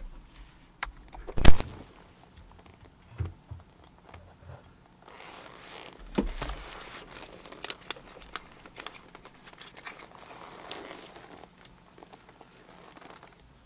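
Leather jacket rustling as it is pulled on and shifted about, with scattered small clicks. There is one loud knock about a second and a half in.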